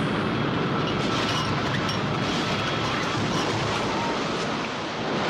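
Cartoon sound effect of a gas-filled, house-shaped balloon lifting off: a loud, steady rushing noise.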